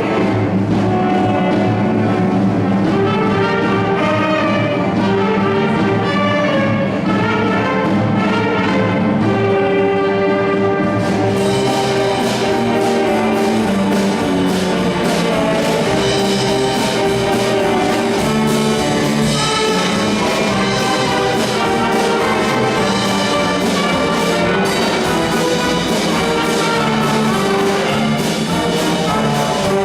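Junior high school band playing, with the brass prominent in sustained notes. About eleven seconds in, the sound grows suddenly brighter and fuller as more of the band comes in.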